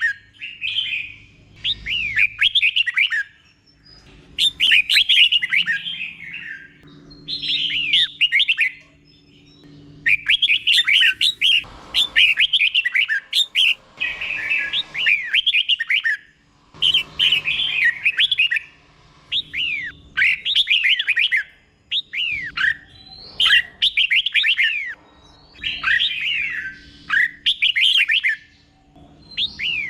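Red-whiskered bulbul singing its doubled song: short phrases of quick falling whistled notes, repeated back to back with brief pauses between them.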